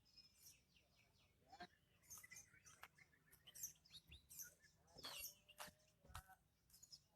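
White-rumped shamas (murai batu) singing faintly in quick bursts of high chirps and whistled phrases, several notes gliding in pitch, with a few sharp clicks between them.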